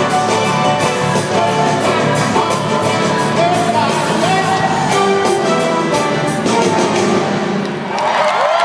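Live pop-rock concert music from an arena crowd: piano and band with a male lead vocal. Near the end the music stops and the crowd cheers and whistles.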